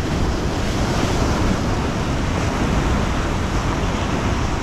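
Sea waves washing and breaking against the rocks of a breakwater, a steady surf, with wind rumbling on the microphone.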